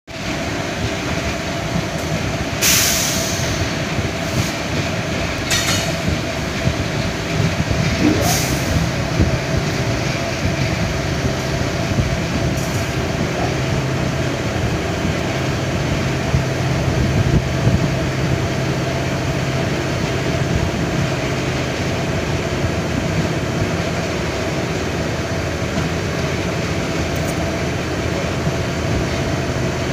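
Train running slowly, heard from on board: a steady rumble of wheels on the rails with a low hum, and a few short hisses in the first ten seconds.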